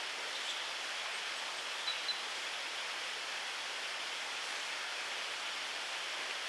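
Steady outdoor rushing hiss of woodland ambience, with two short, high peeps about two seconds in.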